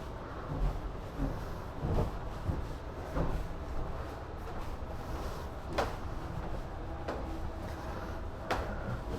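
Scattered light knocks and clicks, a few seconds apart, over a steady low rumble. The sharpest come about six seconds in and near the end.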